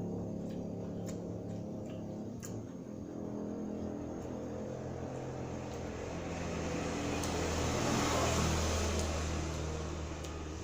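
A vehicle passing by: a low engine hum with road noise that swells to a peak about eight seconds in, then fades. A few faint clicks sound over it.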